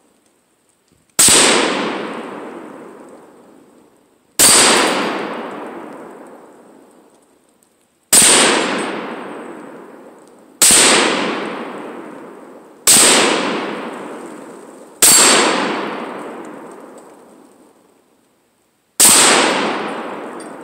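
Seven single rifle shots from an AR-15 (Bushmaster QRC) fired a few seconds apart, each sharp crack followed by a long echo that rolls away through the woods over about three seconds.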